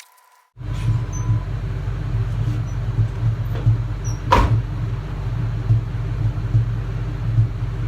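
Car engine running at idle, a steady low rumble with an uneven pulse, starting suddenly after a cut; a single sharp knock about four seconds in.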